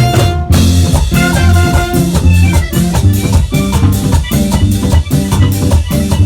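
Vallenato music: a button accordion playing over bass and percussion with a steady beat.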